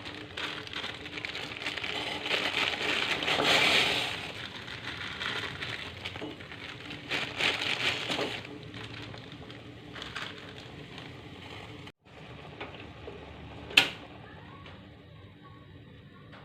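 Kitchen preparation handling noise: crackling and rustling with scattered knocks, loudest in the first few seconds, then one sharp click about fourteen seconds in.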